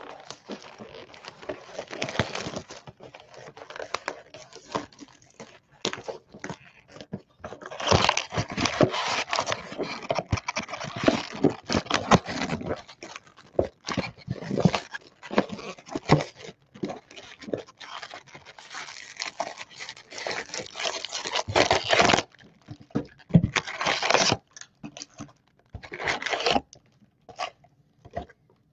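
A sealed cardboard box of trading-card packs being opened by hand: irregular tearing, crinkling and rustling of wrapper, cardboard and foil packs, in uneven spurts.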